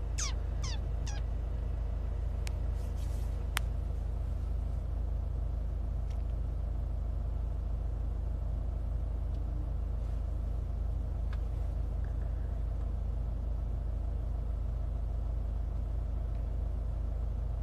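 Steady low rumble inside a stationary car's cabin. A few short falling chirps in the first second and a couple of light clicks a few seconds in.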